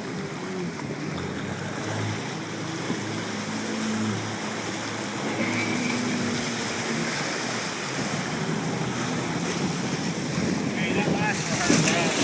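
Jet ski engine running over open water, its pitch wavering, with splashing water and wind buffeting the microphone, the wind strongest near the end.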